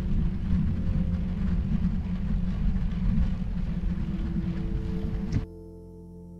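Wind rumbling on a clip-on wireless microphone while cycling, a loud steady low buffeting, with faint background music under it; the wind noise cuts off abruptly about five seconds in, leaving only the music.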